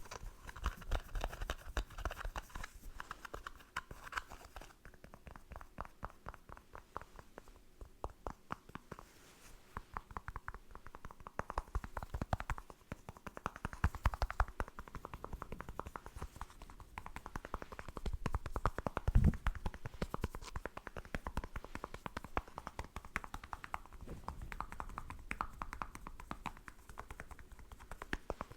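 Fingernails tapping rapidly and continuously on skincare product packaging: quick, light clicks in uneven runs, with a slightly louder knock a little past the middle.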